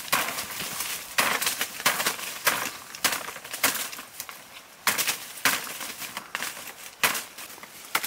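Machete chopping through a bundle of green leaf stalks: a series of sharp cuts, roughly one or two a second and unevenly spaced, with the leaves rustling between them.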